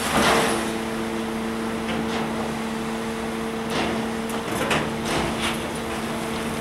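Kobelco SK160 hydraulic excavator running with a steady hum while its steel bucket digs gravel out of an open-top steel gondola rail car. There is a loud scrape and clatter of rock right at the start, and more scrapes around four to five seconds in.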